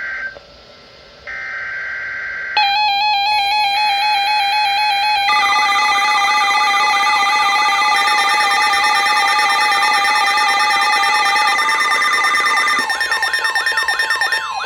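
Emergency Alert System digital data bursts: the warbling screech of the SAME code, one burst ending at the start and another about a second in. Then a loud electronic alert tone made of several steady warbling tones. About five seconds in, swooping siren-like tones join it, repeating about three times a second.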